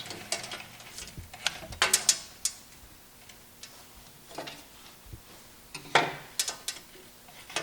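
Electrical wires being fed down into a control panel enclosure: scattered clicks and short scrapes of wire against the panel, loudest about two seconds in and again about six seconds in.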